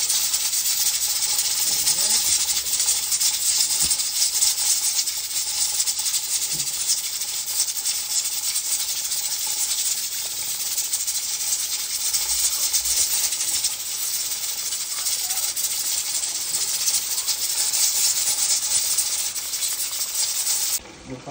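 Flour-coated chicken pieces deep-frying in hot oil in a deep-fryer basket: a loud, steady sizzle and crackle of fast-bubbling oil. It cuts off abruptly near the end.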